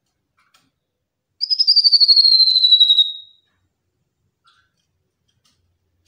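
Tepus lurik mini, a small striped babbler, giving one quick trill of about sixteen whistled notes that slide gently down in pitch for just under two seconds.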